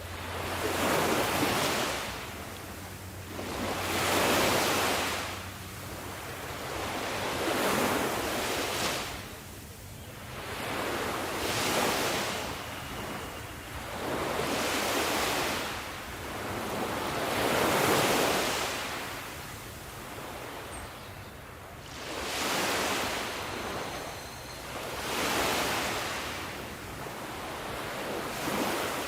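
Ocean waves breaking in steady surf, a swell of rushing water about every three to four seconds that rises and fades away again.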